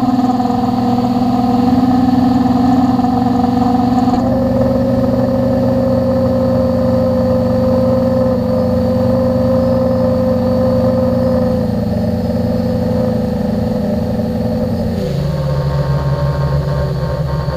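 Multirotor drone's electric motors and propellers running steadily, heard close-up from the camera mounted on the drone. The pitch shifts about four seconds in and drops near the end as the motors slow.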